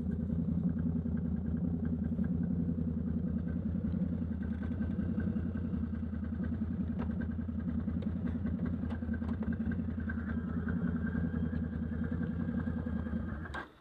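Can-Am Outlander ATV engine running steadily at a constant speed, then cutting off abruptly near the end.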